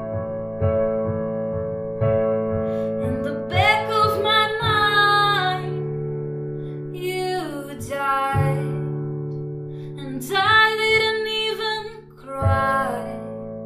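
Digital piano playing slow, sustained chords, with a voice singing long, held notes over it four times.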